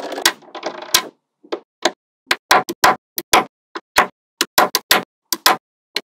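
Small magnetic balls clicking as they snap onto a block of magnetic balls. A short dense rattle of balls comes first, then a string of sharp, uneven clicks, some in quick pairs.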